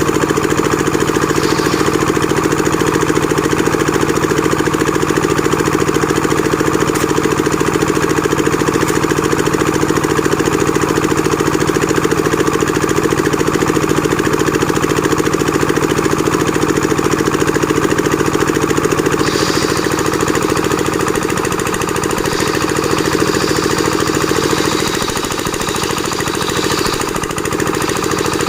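Engine-driven board-making machine running steadily: a continuous engine drone with a fast, even rattle. About 25 seconds in, the steady hum fades and the sound drops slightly.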